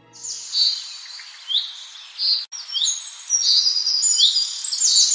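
Birdsong ambience: several small birds chirping and trilling in quick high calls, some sweeping upward, over a faint hiss, with a brief dropout about halfway through.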